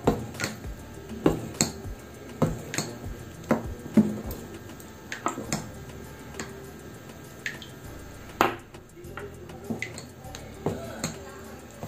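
Steel spoon clinking and scraping against a stainless steel bowl while stirring thick dosa batter with rice flour, about two clinks a second, with one louder knock past the middle.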